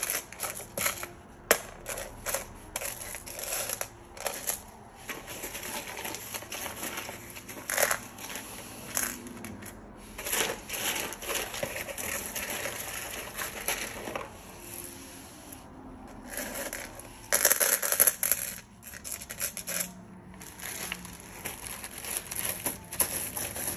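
Small pieces of crushed glass being spread and pushed around by hand on a glass pane: a continual patter of little clinks and scrapes, with a louder burst of rattling about three-quarters of the way through.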